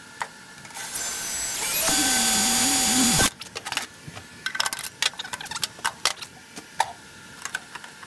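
Kobalt 24V cordless drill running for about two seconds while it match-drills a hole through the aluminium seat belt bracket and cabin structure, then stopping with its whine falling away. Afterwards comes a string of small clicks and metal taps as the parts are handled.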